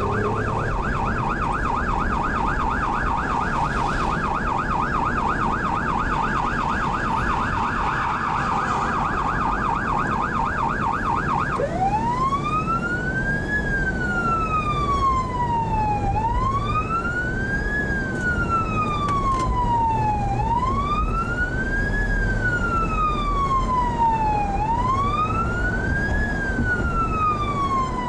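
Police car electronic siren, heard from inside a moving car. It sounds a fast yelp at first, then about a third of the way in switches to a slow wail that rises and falls every four seconds or so. Steady road noise runs underneath.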